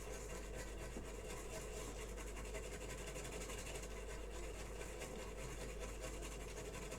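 Rapid, steady scrubbing of a brush over a circuit board around the HDMI port, working off brown flux residue that is holding on well.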